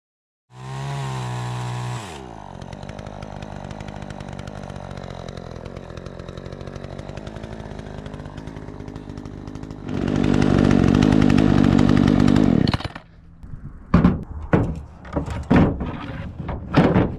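Troy-Bilt 20-inch two-stroke chainsaw running freshly carburettor-tuned: it comes in at high revs, drops to a lower steady speed about two seconds in, is run up loud at full throttle for about three seconds from the ten-second mark, then gives short irregular bursts near the end. To the owner it sounds good, running much better than before the adjustment.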